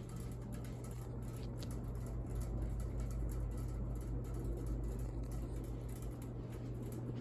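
Ceiling fan running on its high speed, with a steady electrical hum and irregular faint crackling clicks from its loose, untightened blades.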